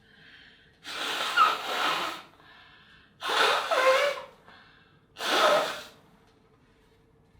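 A person sneezing wetly three times in a row, about two seconds apart, each sneeze preceded by a short gasping in-breath. The first sneeze is the longest.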